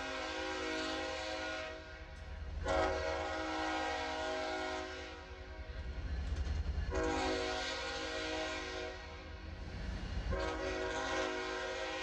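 Diesel locomotive's multi-chime air horn sounding a series of long blasts as the train approaches a road grade crossing: one blast ends about two seconds in, two more follow, and a fourth starts near the end. Under it runs the steady low rumble of the locomotives' engines.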